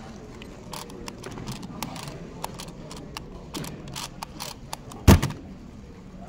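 Rubik's Clock being solved at speed: a rapid run of small clicks from its pins being pushed and dials being turned. About five seconds in, a loud slap as the clock is put down and the hands hit the Speed Stacks G5 stackmat timer to stop it.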